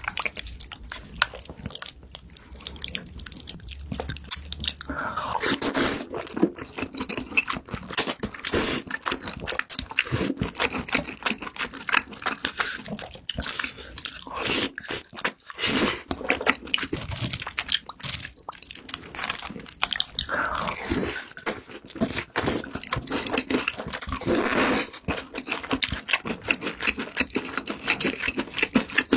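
Close-up eating sounds: someone biting and chewing crunchy food with a rapid, irregular run of crunches and wet mouth clicks.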